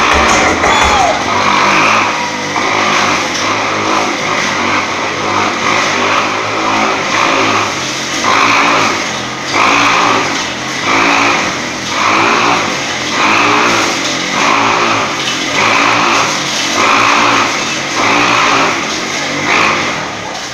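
Motorcycle engine revving hard inside a steel globe of death, the sound swelling and fading about once a second as the bike circles the globe.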